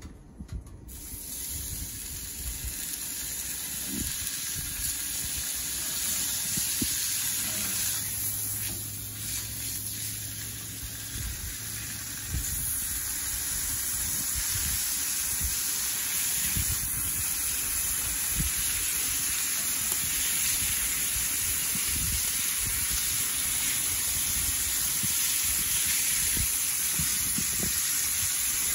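Bacon sizzling on a Blackstone flat-top griddle heated to about 400 degrees: a steady hiss that starts about a second in as the strips go down and grows louder over the first several seconds, with occasional light knocks.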